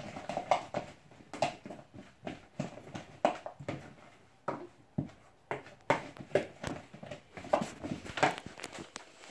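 A utensil knocking and scraping against a bowl while onion rings are tossed in a cornmeal-and-spice coating: irregular sharp taps, a few a second.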